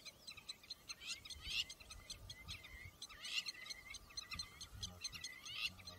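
African wild dogs twittering: a steady run of high-pitched, bird-like chirps and squeaks, with a few louder rising squeals about a second in, past the halfway mark and near the end.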